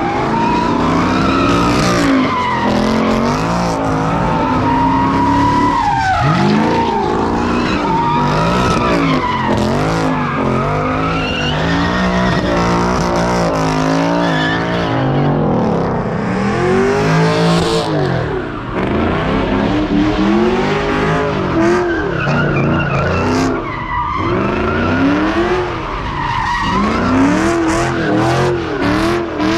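Cars doing donuts and slides: engines revving up and falling back over and over, with tires squealing as they spin on the pavement.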